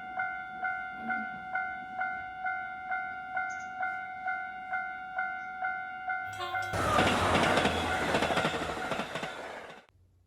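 Railroad crossing warning bell ringing a steady two-tone clang, about two strikes a second. About six seconds in, a passing train's loud rumble covers it, then cuts off suddenly near the end.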